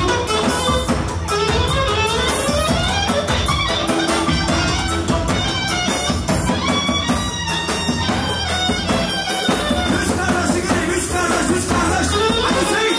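Live band dance music: fast, rising melodic runs on a lead instrument over a steady drum beat.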